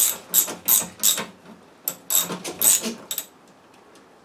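Hand ratchet wrench clicking in a string of short strokes as a snowmobile motor mount plate nut is run down; the clicking stops about three seconds in.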